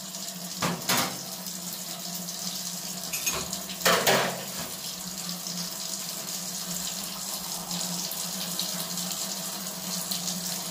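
Hot water poured in a steady stream into a saucepan of coconut-milk curry, with two brief louder moments about one and four seconds in.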